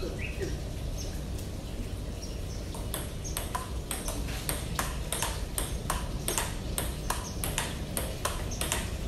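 Table tennis forehand rally: a ping-pong ball being hit back and forth, making sharp clicks on the bats and table. The clicks come in an even rhythm of about three a second, settling in about three seconds in.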